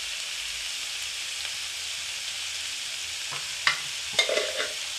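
Diced bell pepper, onion and garlic sizzling steadily in oil in a frying pan. A few sharp knocks and clinks come in the last second and a half.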